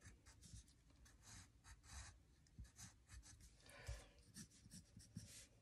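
Faint scratching of a wooden pencil on a sheet of paper, in many short strokes as small keypad buttons are sketched.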